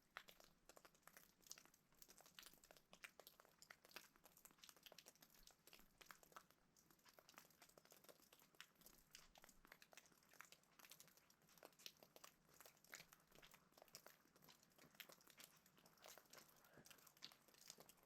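Near silence with faint, irregular crackling clicks throughout.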